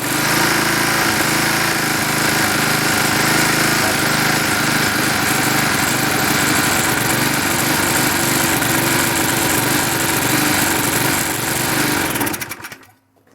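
Briggs & Stratton Quattro 40 single-cylinder four-stroke lawnmower engine running steadily, then shut off near the end and dying away. The engine is running rich and not very strong: it is getting too much fuel, which the owner puts down to the carburetor.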